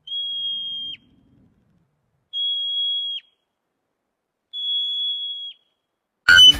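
Three long, steady, high whistle-like tones, each ending in a quick downward slip, about two seconds apart.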